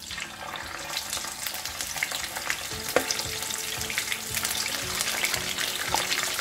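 Chicken wings sizzling and crackling in hot frying oil as they are lowered into the pan, the sizzle growing a little as more pieces go in, with one sharp pop about three seconds in.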